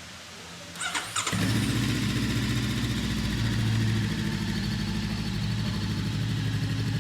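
Voge CU525 motorcycle's parallel-twin engine started on the electric starter: a brief whine of cranking, catching about a second in, then running at a steady idle.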